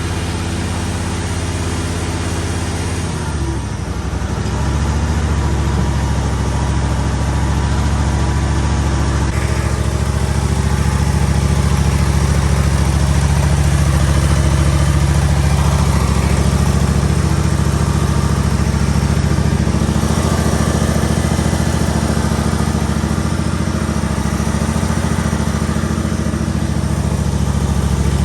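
Briggs & Stratton Vanguard engine in a mini skid steer running steadily, then speeding up about three to four seconds in and holding a higher, louder steady speed.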